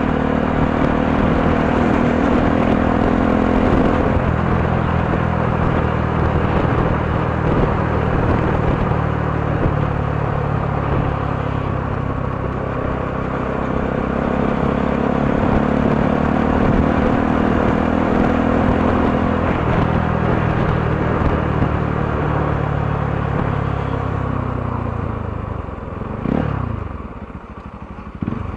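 Motorcycle engine running while riding, its pitch rising and falling with throttle and gear changes, over road and wind noise; the engine note drops away as the bike slows near the end.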